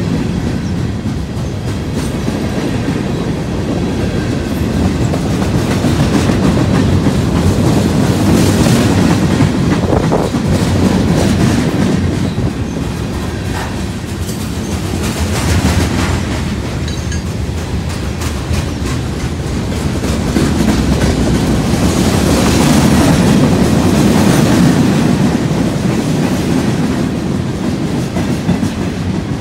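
Freight train cars rolling past close by: a steady rumble of steel wheels on rail with clickety-clack from the wheels crossing rail joints, and sharp clicks scattered through.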